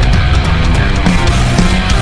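Loud, hard-driving heavy-rock music with a busy beat and a stepping bass line.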